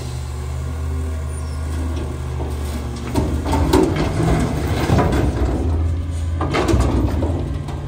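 Autocar WX front-loader garbage truck's engine running steadily while a dumpster is tipped upside down over the hopper, then bulky waste clattering and banging down into the steel body from about three seconds in, with the loudest crashes near four, five and seven seconds.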